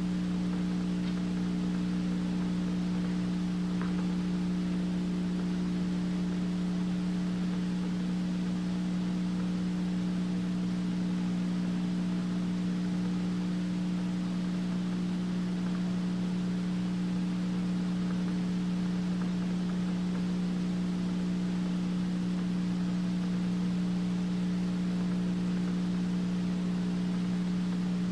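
A steady low hum with a layer of hiss, unchanging in pitch and level.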